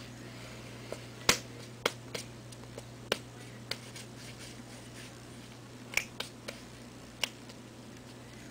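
A person's hands running through a handshake routine: about nine sharp claps and finger snaps at irregular spacing, the loudest a little over a second in.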